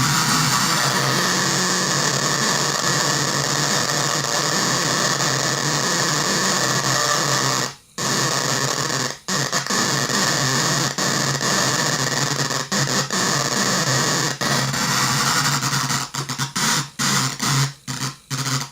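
A 20-watt speaker switched on and off from a 9-volt battery by the chattering contacts of a relay whose coil is fed music from a phone, giving a harsh noisy cacophony in place of the tune. It cuts out briefly about eight and nine seconds in, then stutters in and out more and more often near the end.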